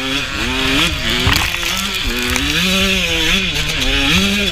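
Suzuki RM125 single-cylinder two-stroke dirt bike engine screaming at full throttle. Its pitch climbs and drops about six times as the rider works the throttle and gears.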